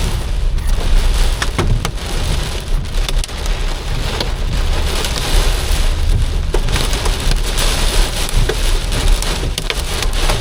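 Heavy rain pelting a moving car, a dense steady pattering with many sharp individual hits, over the low rumble of the car on the road.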